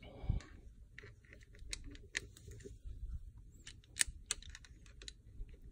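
Irregular light clicks and taps from hands handling a heavy-gauge wire with its soldered terminal and heat-shrink tubing, one sharper click about four seconds in.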